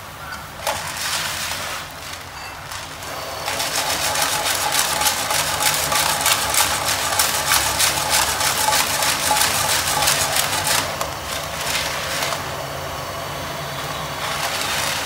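Snails sizzling and crackling in a hot frying pan of sauce over a gas burner. The spitting grows dense and loud about three seconds in, with flames flaring up around the pan, and settles back to a steadier sizzle near the end.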